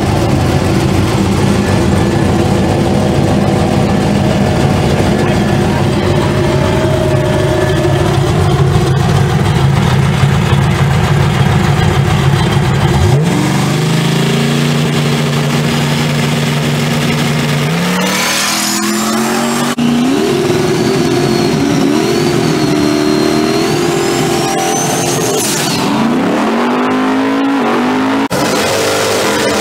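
Drag-racing car engines at the starting line: a deep, steady engine note for the first half, then, after an abrupt change about halfway through, engines revving up and down with a thin high whistle rising over them.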